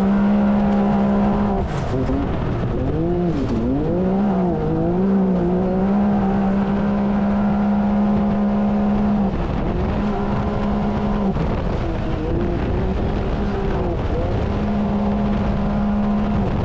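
Can-Am Maverick X3 side-by-side's three-cylinder engine running hard at high revs during a race, heard from inside the open cab over a rushing noise. The engine's pitch holds steady for long stretches, dips and climbs back several times between about two and six seconds in, and falls off briefly twice later on.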